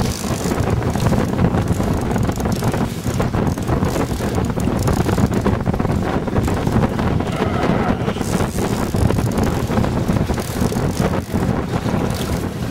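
Wind buffeting the microphone on an open boat at sea: a steady, loud rush of noise, heaviest in the low end.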